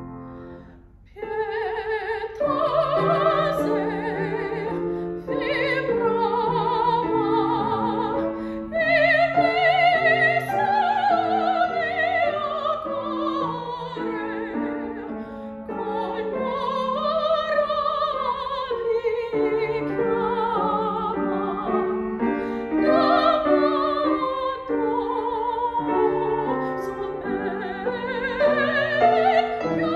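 Soprano singing a classical piece with a wide vibrato, accompanied by a grand piano. The piano's last note dies away in the first second, then voice and piano come in together and carry on.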